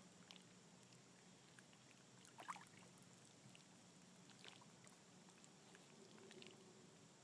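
Near silence with a faint steady hum and a few soft scattered clicks, the clearest about two and a half seconds in.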